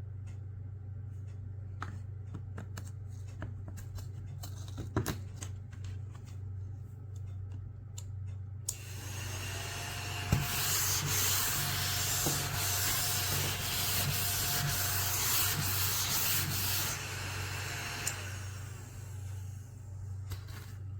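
Mini AA-battery desktop vacuum cleaner switched on about nine seconds in, running with a steady whine over a hiss for about nine seconds, then stopping abruptly. Light clicks and taps of handling come before it.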